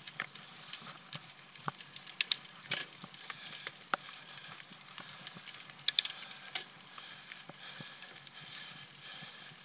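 Mountain bike rolling along a dirt trail: a steady rush of tyre noise with scattered sharp clicks and rattles from the bike, the loudest about two seconds in and again near six seconds.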